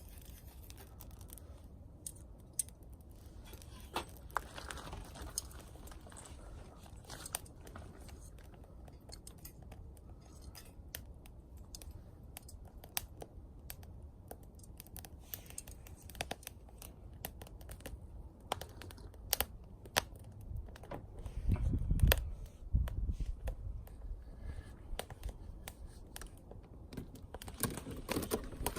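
Wood fire crackling in a small camping wood stove, with irregular sharp pops and snaps. A louder low rumble swells and fades about three-quarters of the way through.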